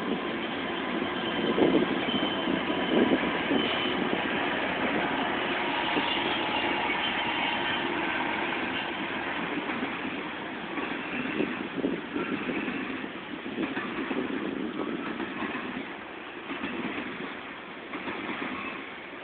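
Freight train rolling past: the steady rumble and clatter of loaded covered hopper cars on the rails, loudest in the first few seconds.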